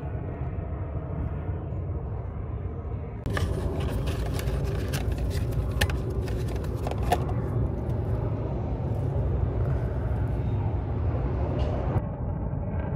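A steady low rumble, with light clicks and rustling from about three to seven seconds in as a cardboard oil filter box is handled.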